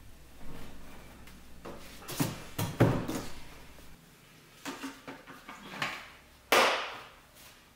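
Hollow plastic clunks and knocks as a jug of engine oil is set down on a concrete floor and the lid and spout of a plastic oil-filling container are handled, with a loud knock about three seconds in and another about six and a half seconds in.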